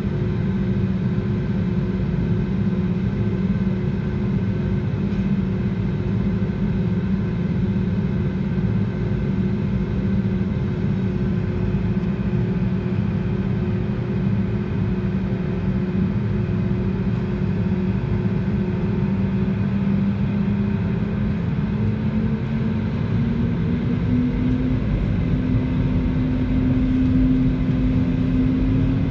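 Airbus A320neo engines heard inside the cabin on the ground: a steady low hum with a drone beneath. Over the last few seconds the pitch climbs and the sound grows a little louder as the engines spool up.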